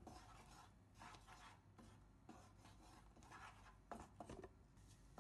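Faint scraping and rubbing of a wooden spatula against a non-stick frying pan as egg is broken up and scrambled, with a few sharper taps about four seconds in.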